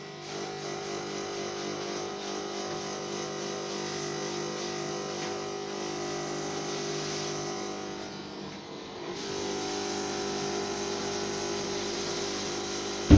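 Kärcher washing vacuum running steadily, its motor humming under a hissing suction; the sound sags briefly about two thirds of the way through, then picks up again. A sharp knock right at the end.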